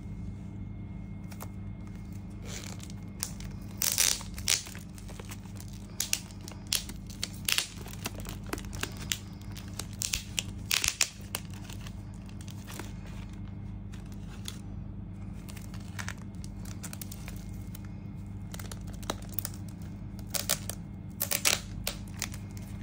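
Thin clear plastic bag being pulled and peeled off a laptop by hand: irregular crinkling and tearing crackles that come in clusters, over a steady low hum.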